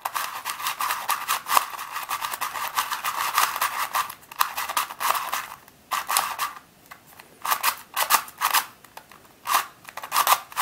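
Plastic Shengshou Crazy 2x2 twisty puzzle being turned by hand: its layers click and clack as they rotate. There is a quick, continuous run of clicks for about the first five seconds, then shorter runs of turns with brief pauses between them.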